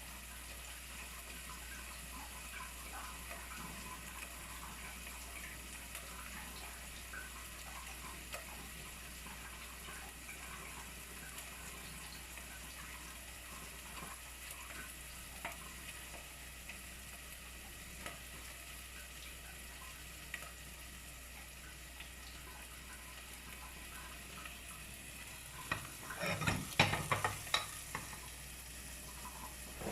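Water running in a steady hiss, with small scattered splashes and ticks. A burst of louder splashing and clattering comes about 26 seconds in.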